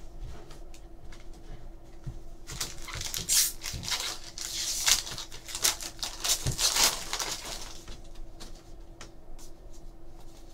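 Foil wrapper of a 2013 Topps Series 2 jumbo baseball card pack crinkling and tearing as it is ripped open by hand, in a run of sharp rustling bursts over several seconds, then quieter handling of the cards.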